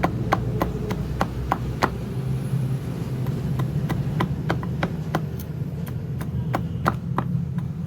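Repeated chopping strikes on wood while a gilli is shaped, about four a second, over a steady low hum. The strikes pause briefly about two seconds in, then go on.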